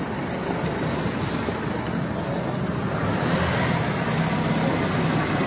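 Steady wind noise buffeting the microphone, a little louder from about three seconds in.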